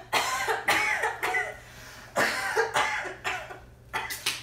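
A person coughing in two bouts, the first about a second and a half long and the second shorter, followed by a few short clicks near the end.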